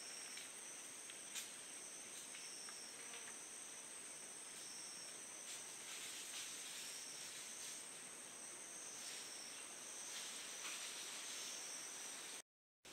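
Steady high-pitched insect chorus, trilling without a break, with a few faint ticks. It cuts out completely for a moment just before the end.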